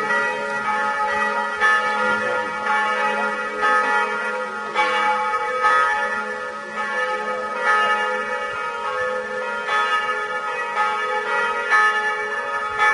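Church bells pealing, with strokes about once a second, each bell ringing on under the next.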